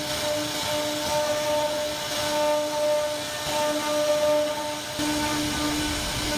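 CNC router spindle whining steadily as its bit carves grooves into a wooden panel, with the rasping hiss of the cut. A deeper rumble joins about five seconds in.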